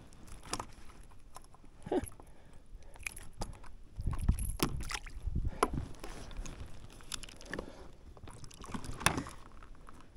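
Water sloshing and lapping around a small fishing kayak, with scattered sharp knocks and clicks of handling on board and a louder low rumble about four seconds in.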